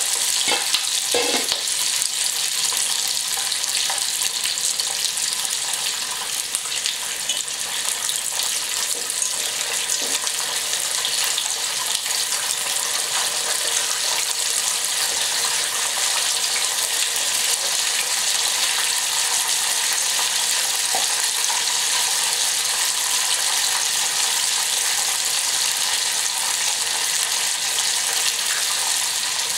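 Coated chicken breast pieces frying in hot oil in a pan: a steady sizzling crackle.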